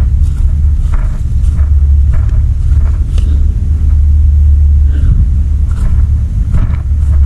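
Strong wind buffeting the camera's microphone: a heavy, steady low rumble, with scattered faint crackles.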